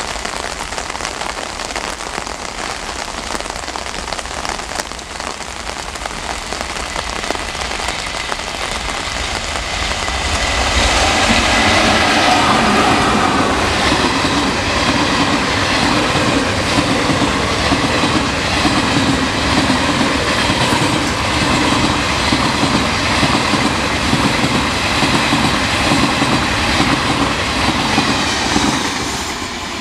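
Heavy rain falling, then an express train hauled by a WAM-4 electric locomotive comes up and passes close at speed: the sound builds to a loud rumble with a rhythmic clatter of the coaches' wheels over the rail joints. Near the end the last coach goes by and the noise drops away, leaving the rain.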